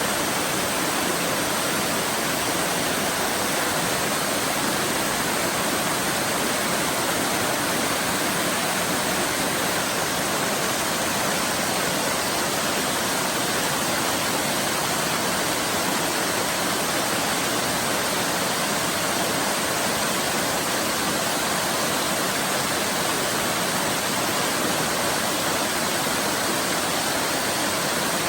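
Waterfall rushing steadily, an even, unbroken roar of falling water with no distinct splashes or changes.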